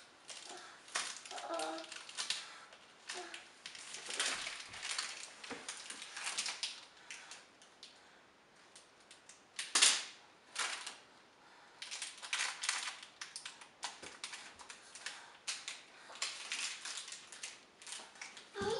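Plastic candy wrappers crinkling and crackling in irregular bursts as a toddler handles them, with one sharper, louder crack about ten seconds in.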